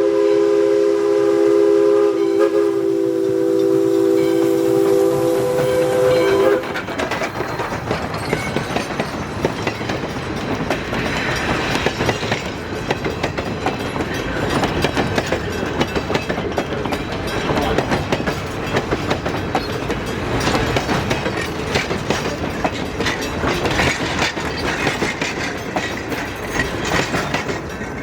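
Steam locomotive's whistle blowing one long chord of several notes, cutting off suddenly about six seconds in, then the train rolling past with a rhythmic clatter of wheels over the rail joints and running gear.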